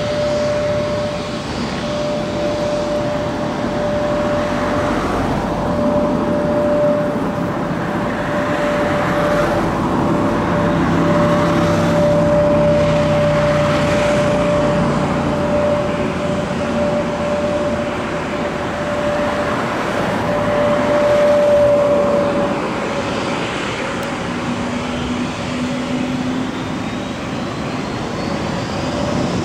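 Airbus A321neo's Pratt & Whitney PW1100G geared turbofan engines running at taxi power as the jet rolls past: a steady high whine over a broad engine rumble, the whine fading out a little over two-thirds of the way through.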